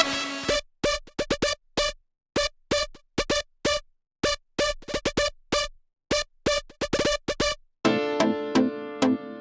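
Electronic music: short, clipped synthesizer stabs in a choppy rhythm with silent gaps between them, then sustained keyboard-like synth chords from about 8 seconds in.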